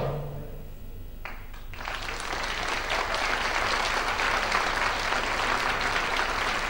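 Audience applauding, swelling about two seconds in and then holding steady, as the ring of a final drum beat fades at the start.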